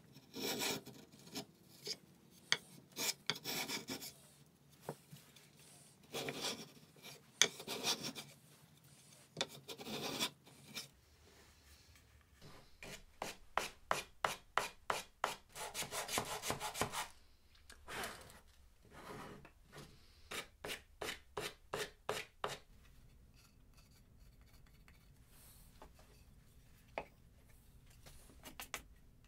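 Sandpaper on a hand sanding block rubbed back and forth over a small wooden box, in runs of quick strokes, about four a second at the fastest. The rubbing stops well before the end, leaving only a few faint ticks.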